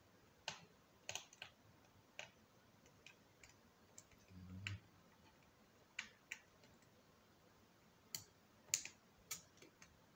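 Faint, scattered small clicks and taps of metal tweezers and a small screwdriver against an opened smartphone's frame and parts, with a soft low bump about four and a half seconds in and a quicker run of clicks near the end.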